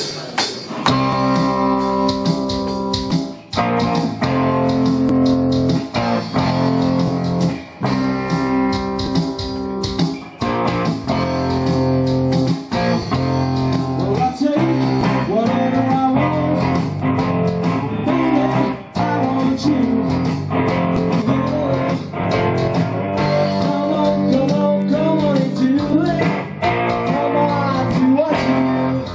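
Live band music, led by two amplified electric guitars playing together.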